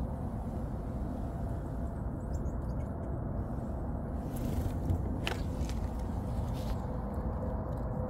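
Steady low outdoor rumble, with a few faint short ticks, the clearest about five seconds in.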